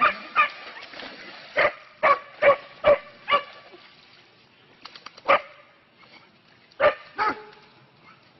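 Dog barking: about ten short, sharp barks, most of them in a quick run during the first three and a half seconds, then a few single barks spaced further apart.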